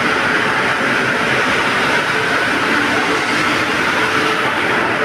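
A train running at a railway station: a steady, unbroken noise with a faint hum underneath.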